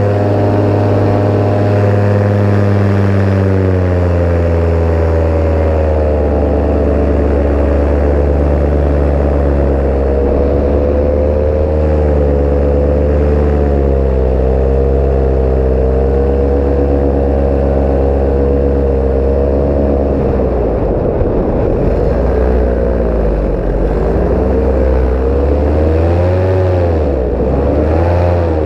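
Paramotor's two-stroke engine and propeller running in flight. The pitch drops in the first few seconds, then rises and falls with the throttle, with quicker swings near the end.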